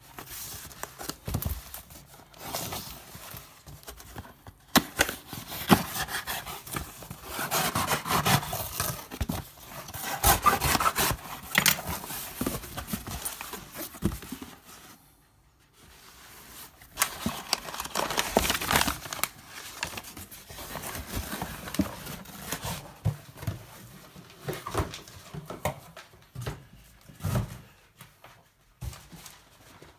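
Hands handling a cardboard shipping box and the plastic supplement tubs inside it: rustling and scraping of cardboard with irregular knocks and clicks, in busy stretches with a short pause about halfway.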